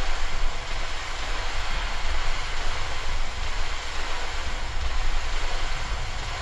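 Dark ambient soundscape: a steady rushing noise over a deep low rumble, with no distinct events or melody.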